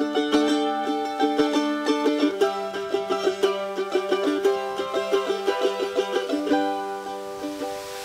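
Background music: quick plucked-string notes over a held low note.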